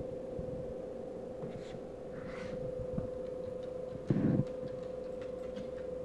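Glass-door beer fridge running with a steady, even hum on one tone, with a short low thump about four seconds in.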